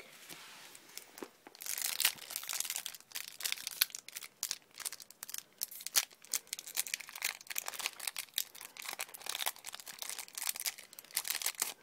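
Foil Yu-Gi-Oh booster pack wrapper being twisted and torn open by hand: a dense, irregular run of sharp crinkling and crackling that starts about a second and a half in.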